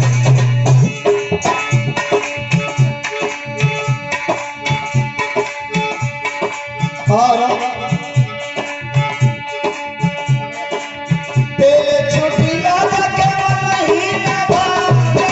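Devotional bhajan music: a harmonium holds chords over a hand drum keeping a quick, steady beat. A male voice comes in singing for the last few seconds.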